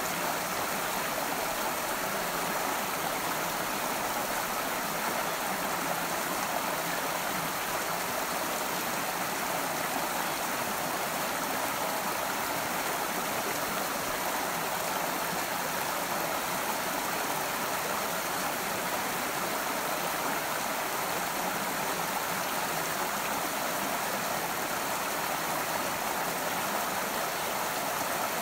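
A small stream running over rocks: a steady, even rush of water that does not change.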